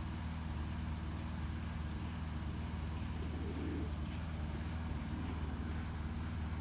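A steady low mechanical hum, with a single short pigeon coo about three and a half seconds in.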